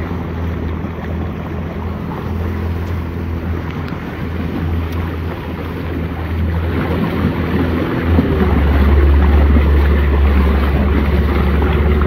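Small Suzuki outboard motor on a 12-foot tin boat running steadily under way, a constant low hum mixed with water and wind noise. The motor gets louder about eight seconds in.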